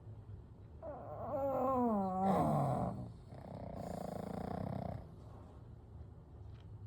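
Sleeping pugs snoring: about a second in comes a long pitched snore that wavers and then slides down in pitch, and around four seconds a rougher snore follows. Quieter breathing runs between them.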